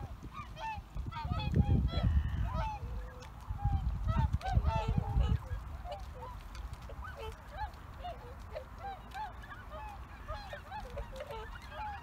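A flock of swans calling in flight overhead, many short honking calls overlapping one another. A loud low rumble, like wind on the microphone, comes and goes from about one to five seconds in.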